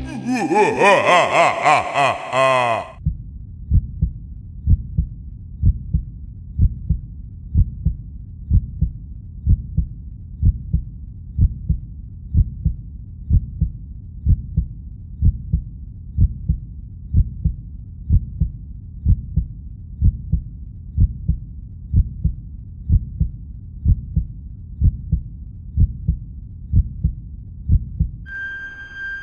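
Slow, steady heartbeat thumps. It starts after a drawn-out scream-like sound fades out in the first few seconds. Near the end a steady electronic tone comes in.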